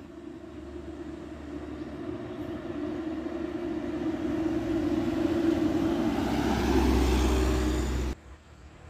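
Truck engine approaching, its running note and rumble growing steadily louder as it nears, then cut off suddenly about eight seconds in, leaving a much quieter vehicle sound.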